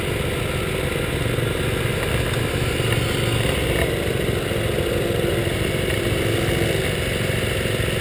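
Small motorcycle engine running steadily while riding at a constant speed, heard from a camera mounted on the bike.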